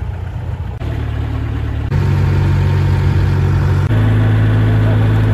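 A small fishing boat's inboard engine running steadily under way. Its low drone shifts in pitch in a few sudden steps.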